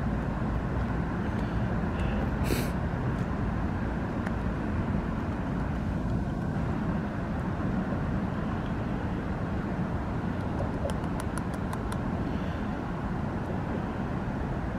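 Beaver gnawing on a log at close range: a sharp crunch about two and a half seconds in, and a quick run of clicking bites about eleven seconds in. Under it all runs a steady low rumble of background noise.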